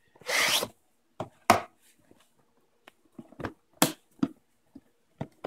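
A cardboard gift box being unpacked by hand: a brief sliding scrape just after the start as the outer sleeve comes off, then a string of separate knocks and taps as the box and its lid are handled.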